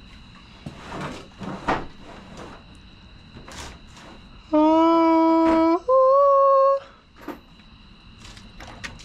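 A person's voice humming or singing two held notes, about a second each, the second a step higher, with a few light knocks around it.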